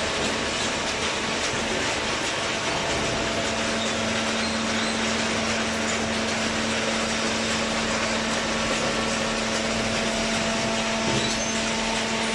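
Horizontal cardboard baler running: steady industrial machine noise, with a steady hum from its hydraulic drive that comes in about three seconds in.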